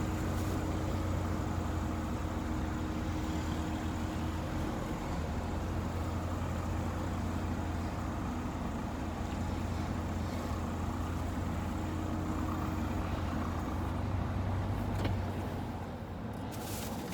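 A car driving, heard from inside the cabin: a steady low engine and road hum that eases off a little near the end.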